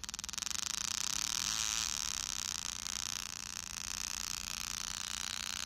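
A 555 timer oscillator clicking through a small speaker like a motorbike engine. As its variable resistor is turned with a screwdriver, the clicks speed up and within about half a second merge into a continuous harsh, hissy buzz that carries on.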